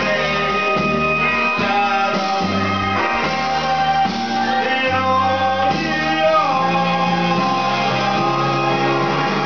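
Rock karaoke backing track with guitar and a stepping bass line, played loud through a PA, with a man singing along into the microphone.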